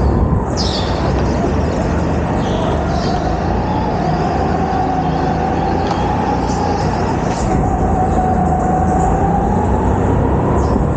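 A go-kart driven hard around an indoor track, heard from on board: the motor's steady whine rising and falling a little with speed over a continuous rumble, with a few brief tyre squeals through the corners.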